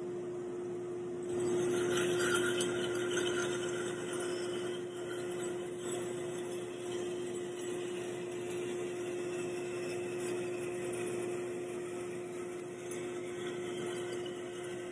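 Band saw running with a steady hum, its blade cutting into a wooden board from about a second in, a rasping sawing sound that slowly fades as the board is fed along the cut line.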